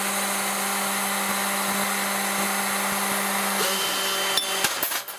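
Bench Source automatic case annealer running: the steady hiss of its two pencil-flame gas torches heating the necks of brass rifle cases, over a steady low hum. A couple of light clicks near the end.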